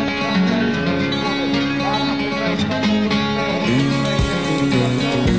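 Background music led by plucked acoustic guitar; about three and a half seconds in it turns fuller, with a heavier low end.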